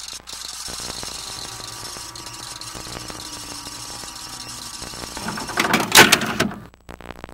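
VCR tape-transport sound effect for fast-forwarding: a steady mechanical whirring and rattling. It grows into a louder clatter about six seconds in, then cuts off as the tape stops.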